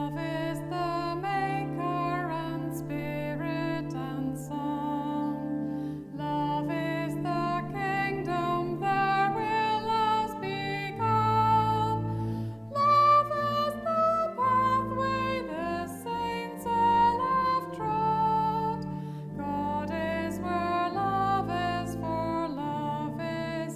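A hymn sung to instrumental accompaniment: a wavering sung melody over sustained low notes.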